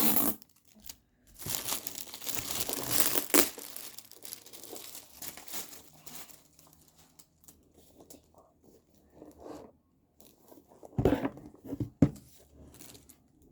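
Paper or plastic packaging crinkling and tearing as a gift box is handled, loudest in the first few seconds, with quieter rustles after and another short burst of crinkling with a sharp click near the end.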